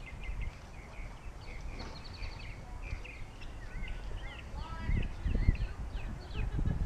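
Birds chirping and singing, many short calls and sliding notes, over a low rumble that swells about five seconds in and again near the end.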